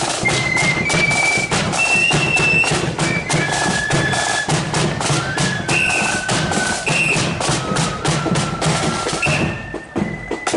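Marching flute band playing: a melody of high held flute notes over steady, busy drumming with bass drum beats. The playing drops away briefly near the end.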